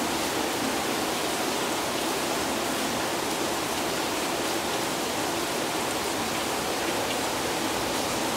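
Heavy tropical rain falling in a steady downpour.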